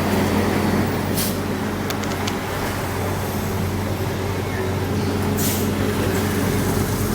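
Heavy diesel engine of road-paving machinery running steadily. Two short hisses of compressed air come about a second in and again about four seconds later, with a few light clicks between them.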